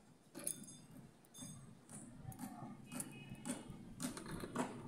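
Metal clips of a resistance band set clicking and clinking as a rubber band is hooked onto its handle: a series of light clicks, more frequent toward the end.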